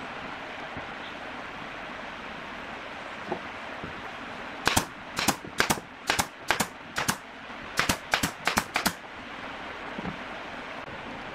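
Brad nailer firing about a dozen nails in quick, uneven succession, starting a little under five seconds in and stopping about nine seconds in, driving nails into bent wooden strips.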